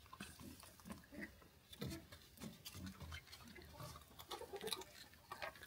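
A pet raccoon eating a dry sushka bread ring: faint, irregular small crunches and clicks.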